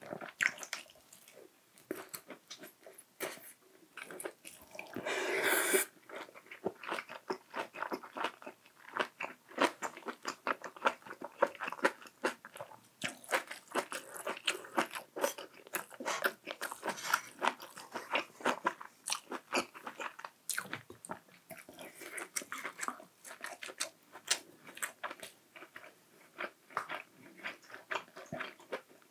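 Close-miked eating sounds: a person chewing and biting food with wet clicks and crisp crunches, and a short louder rush of noise about five seconds in.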